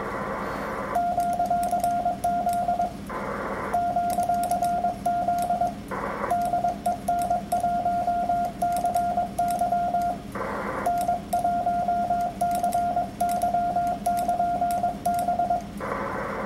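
Morse code (CW) keyed on an amateur radio transceiver: a steady mid-pitched sidetone switched on and off in dots and dashes, sending a QRZ call with the operator's call sign. The tone comes in four long stretches, and between them receiver hiss comes up briefly, as the rig listens between sending.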